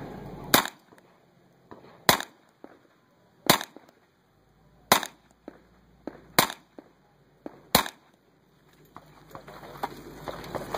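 Six revolver shots fired at a slow, even pace, about one every one and a half seconds.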